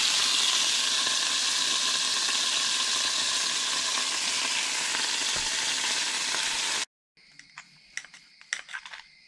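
Snapping-turtle tenderloins sizzling in oil in a nonstick frying pan, a steady hiss that cuts off abruptly about two-thirds through. Then faint clicks of a fork and knife on a plate.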